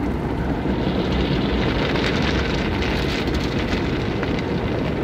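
Water spraying onto the windshield and body of a car in an automatic tunnel car wash, heard from inside the cabin as a steady rain-like rush that gets brighter and hissier about a second in.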